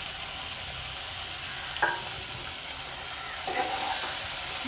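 Spicy masala paste sizzling in a kadai of hot mustard oil as small mourala fish are tipped in, with a short clink of a utensil about two seconds in and another faint one near the end.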